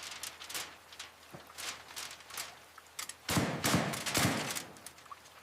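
A run of irregular knocks from a swung tool striking, with a cluster of heavier, louder hits about three and a half to four and a half seconds in.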